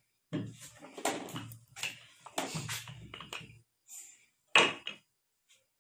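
Rolling pin working roti dough on a round wooden board (chakla): irregular rubbing strokes and knocks, with one louder knock about four and a half seconds in.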